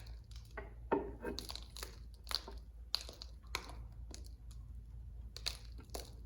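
Irregular clicks, knocks and scraping of tools and metal as the timing cover of a 1931 Rumely 6A engine is worked loose, with the sharpest knock about a second in.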